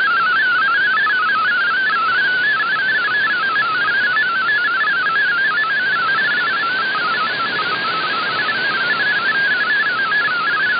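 MFSK32 digital-mode data signal heard over a shortwave receiver: a fast, warbling string of single tones hopping up and down around 1.5 kHz, carried on steady band hiss. The tones are text being sent and decoded as they arrive.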